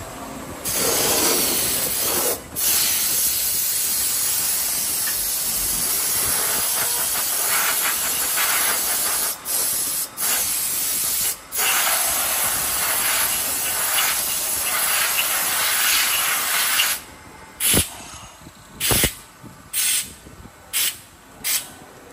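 Compressed-air blow gun blasting metal chips off a workpiece on a CNC machine table: a loud, steady hiss that cuts out briefly a few times as the trigger is released. Near the end it breaks into a series of short blasts.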